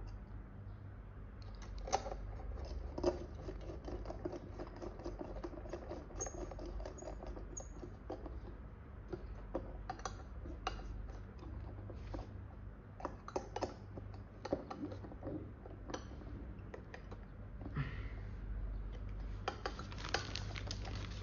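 Scattered small clicks and taps of a hand screwdriver and metal screws being worked into a drone motor's propeller mount, over a low steady hum. Near the end, a denser rustling as hands move over the foam wing.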